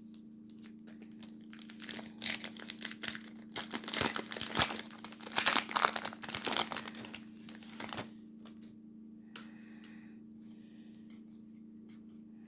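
Foil wrapper of a baseball card pack crinkling and tearing open, a dense run of crackles from about a second in until about eight seconds, then a few faint rustles.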